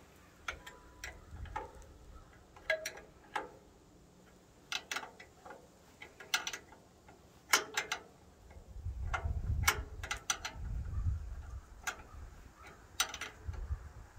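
A steel wrench clicking and clinking on a bandsaw mill's wheel-adjustment bolts as they are snugged back up to lock in the blade tracking. The sharp metallic clicks come irregularly, about one every second or so.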